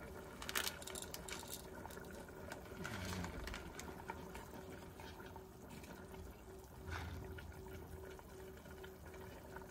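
A wooden spoon stirring the wet, saucy meat in a stainless steel pot of deer adobo, the liquid sloshing, with a few light clicks and rustles in the first second and a half, over a faint steady hum.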